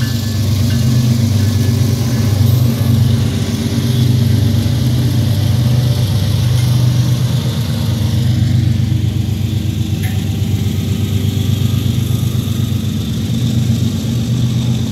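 A freight train passing close by. Its diesel locomotives run with a steady low drone, and the covered hopper cars behind them roll past on the rails.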